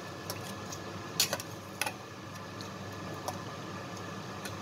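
Diced raw potatoes tipped from a stainless-steel bowl into a frying pan of browned minced pork, giving scattered light clicks and taps, the sharpest just over a second in. A steady low hum runs underneath.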